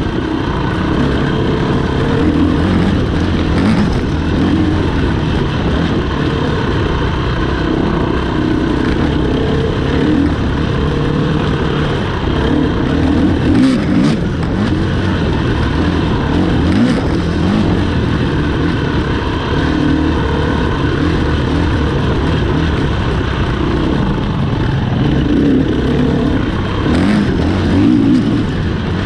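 Off-road motorcycle engines running and revving, their pitch rising and falling throughout.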